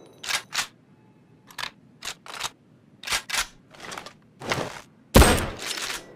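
Mosin-Nagant bolt-action rifle: a run of short metallic clicks and knocks as the bolt is worked, then one loud shot about five seconds in with a long ringing tail.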